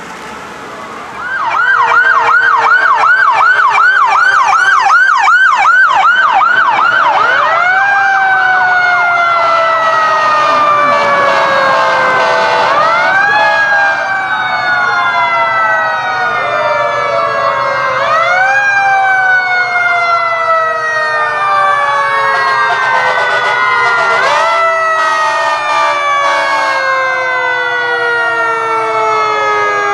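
Electronic sirens of emergency vehicles. A fast yelp of about four cycles a second starts a second in and runs for about six seconds. Then several wail sirens sound over one another, each rising quickly and falling slowly in a long, repeating sweep.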